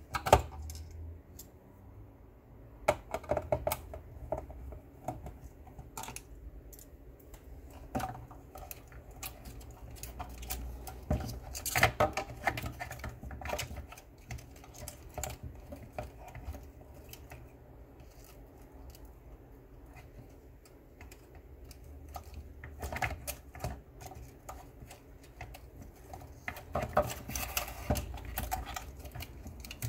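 Irregular clicks and knocks of hard plastic parts and a screwdriver being handled inside the opened black plastic case of a portable speaker, as the battery pack is worked loose.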